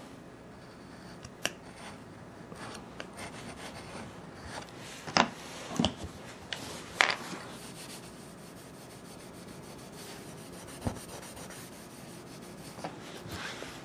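Hand tools scraping and rubbing on a wooden floor surface under repair: irregular short scrapes and light clicks, with a few sharper, louder scrapes about five and seven seconds in.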